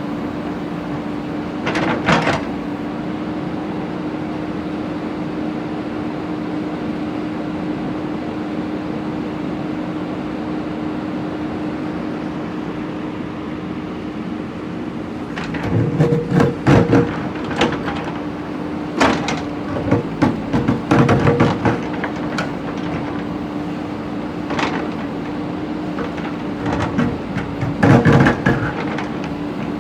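JCB backhoe loader's diesel engine running steadily, with bouts of clanking and knocking as the bucket works through bricks and stone: once about two seconds in, then several clusters through the second half.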